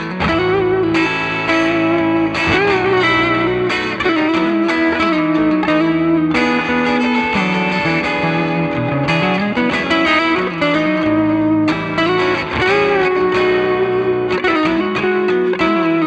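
Bacchus BTE-2-RSM Telecaster-style electric guitar played through a Nux MG30 multi-effects modeler with a lightly driven tone. The guitarist plays a continuous phrase of sustained notes and chords, with notes bent and slid in pitch.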